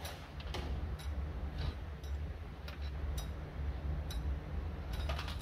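Steel U-bolts clinking against each other and the metal tabletop as gloved hands sort them and gather them into a bundle: irregular light metallic clicks, with a quick cluster of several near the end, over a steady low hum.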